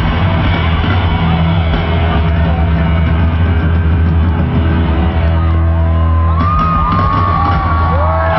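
Loud live pop concert music from an arena PA, with a steady low held chord under it. A crowd of fans screams and cheers, the shouts growing louder over the last couple of seconds.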